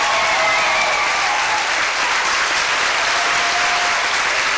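Audience applauding steadily, with a voice or two calling out over it near the start.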